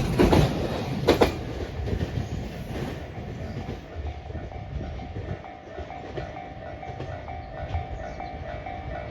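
Freight train passing: wheels of the last Koki container wagons clack over the rail joints for the first second or so, then fade away. Behind them a level-crossing warning bell keeps ringing at an even rhythm.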